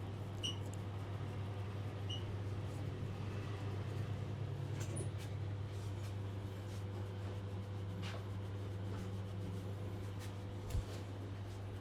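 A steady low hum with faint rubbing and a few light clicks over it, and one dull low thump near the end.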